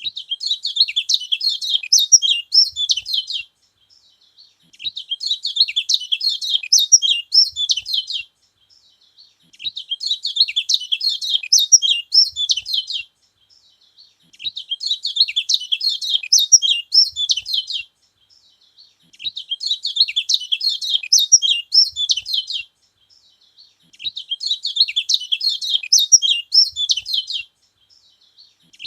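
Kecial kuning, a yellow white-eye, singing a fast, high twittering song. The song comes in bursts of about three and a half seconds with a second's pause between them, six times over. This is the kind of song said to rouse other kecial birds.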